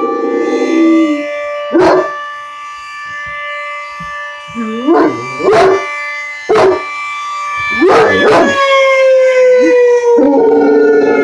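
Outdoor tornado warning siren sounding a steady tone that swells and fades in loudness as it rotates, its pitch beginning to fall near the end. A dog howls along at the start, then gives several sharp barks and yelps over the siren.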